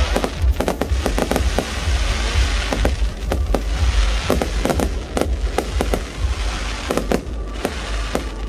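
Fireworks display bursting in rapid, irregular bangs with crackling, over a low rumble.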